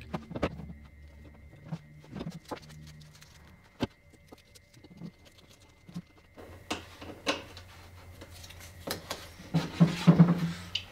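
Hands handling blue painter's tape at a wooden workbench: light taps, clicks and rustles as tape is torn and wrapped around a pencil, with one sharper knock about four seconds in.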